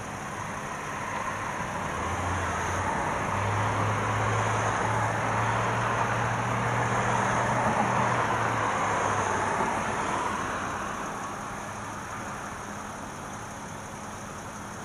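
A car passing through the intersection: tyre and engine noise that swells over several seconds, is loudest in the middle, then fades away.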